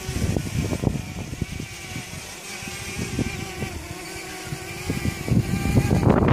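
DJI Mavic Mini drone's propellers humming at a steady pitch that wavers slightly as the drone holds position in gusty wind, with wind buffeting the microphone in low rumbling gusts, loudest near the end.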